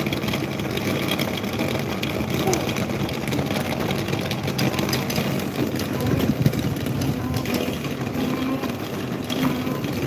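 Electric table fans running: a steady motor hum with the rush of air from the spinning blades.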